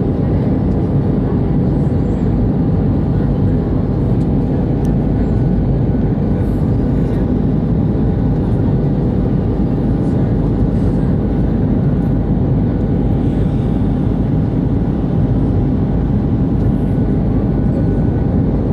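Steady cabin noise of an Airbus A319 in flight, the engines and rushing air making an even low rumble with a faint steady hum above it.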